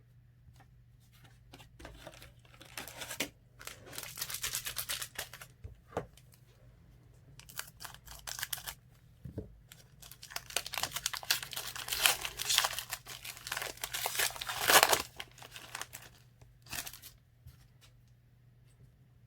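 A foil trading-card pack wrapper being torn open and crinkled by hand in several rustling bursts, the loudest near the end.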